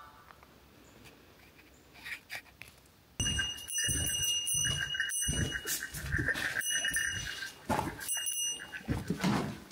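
Quiet for about three seconds with a few faint knocks. Then footsteps on old wooden boards, with a steady squealing creak of the wood that breaks off and restarts several times.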